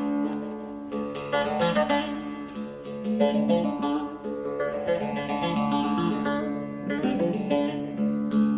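Background music played on a plucked string instrument, a melody of changing notes over a sustained low tone.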